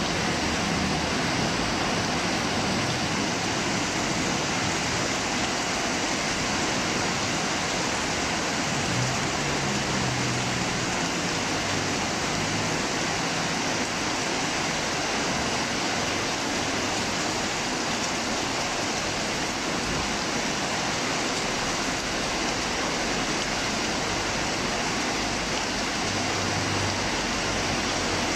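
Heavy storm rain pouring steadily, a dense even hiss of rainfall.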